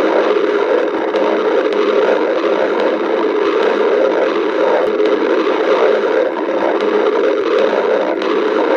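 Stomach growling: a continuous, loud rumbling gurgle from the gut, with no break.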